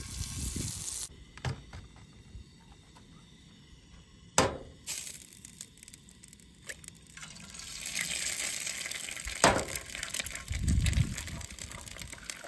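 Egg frying in hot butter in a skillet on a camp stove: a couple of sharp taps as the shell is cracked, and a sizzle that swells over the second half.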